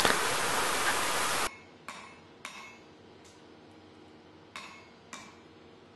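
A loud steady rushing hiss cuts off suddenly about a second and a half in. Then about six separate ringing blows of a cross-peen hammer on a hot steel axe-head blank against the anvil, spreading the cheeks of the eye.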